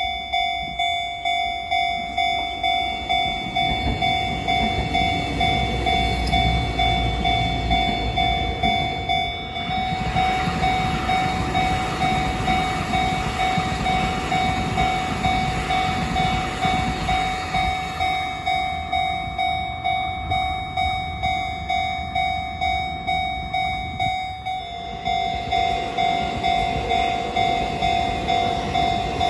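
Level-crossing warning bell ringing in a steady, fast repeating pulse while an electric multiple-unit local train passes close by, its wheel-on-rail rumble swelling, holding loud for several seconds, then easing off. Near the end a second swell of rail noise begins as a TEMU2000 Puyuma tilting express arrives and starts to pass.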